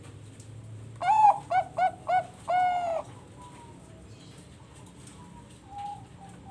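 Bangkok-line zebra dove (perkutut) cooing. One song has a first note, three short quick notes and a long held final note, followed near the end by a fainter run of short coos.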